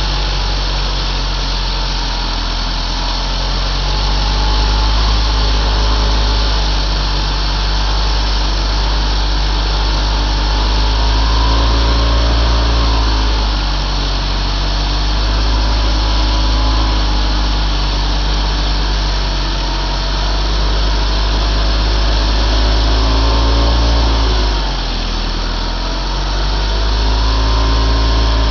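Stihl MS 361 two-stroke chainsaw running under load while cutting a stump flush, its engine pitch dipping and recovering twice.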